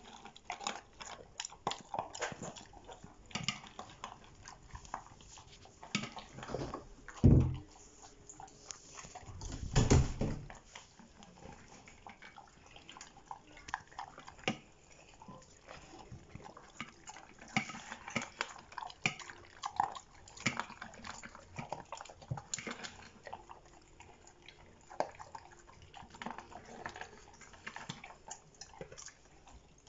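Dogs eating dry kibble from stainless steel bowls: irregular crunching and clicking of kibble against the metal. Two loud thumps come about 7 and 10 seconds in.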